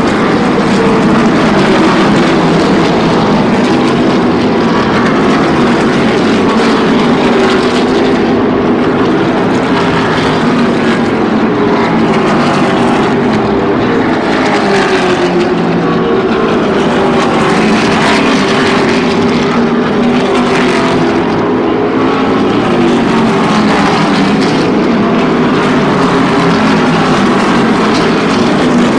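NASCAR Xfinity Series stock cars' V8 engines running at racing speed, many engine notes overlapping, the pitch sweeping up and down as cars pass.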